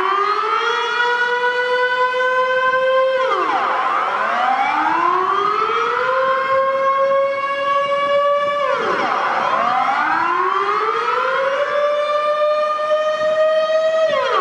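Outdoor civil-defence warning siren sounding its monthly test: a loud wailing tone that rises over two to three seconds, holds briefly, then drops sharply. The cycle comes round about every five and a half seconds, three times here, with fainter overlapping glides around each drop.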